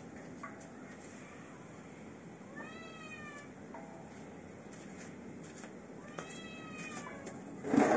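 A cat meows twice, each a falling call just under a second long, about three and a half seconds apart. A loud burst of noise starts just before the end.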